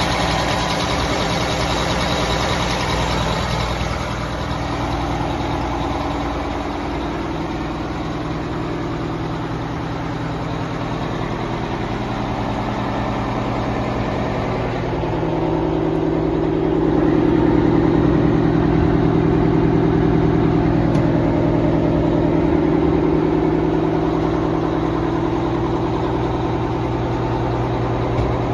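Detroit Diesel 8V-92 two-stroke V8 diesel of an Oshkosh M1070 truck tractor idling steadily. It grows louder for several seconds past the middle.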